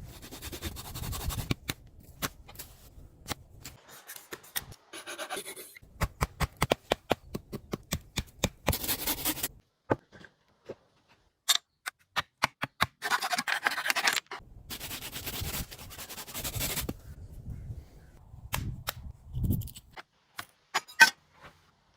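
Hand work on wood: rasping scrapes and rubs, with runs of quick, sharp clicks and separate knocks in between.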